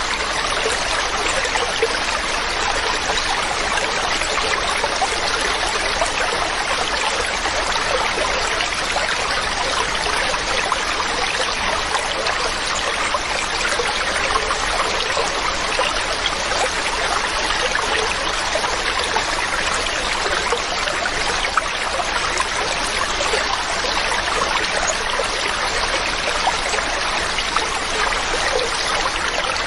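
A mountain stream running over rocks: a steady, even rush and babble of water that doesn't change.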